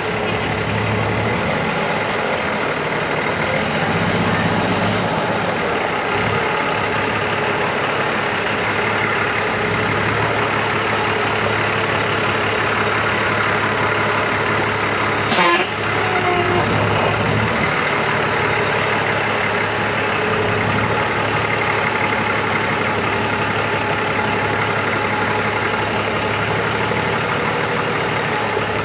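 Heavy tractor truck's diesel engine running steadily at low speed as the truck slowly manoeuvres with its lowboy trailer, with one brief sharp sound about halfway through.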